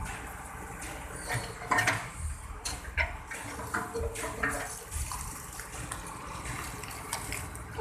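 Backhoe working: a low rumble under a steady noise, with irregular knocks and clanks, the loudest around two and three seconds in.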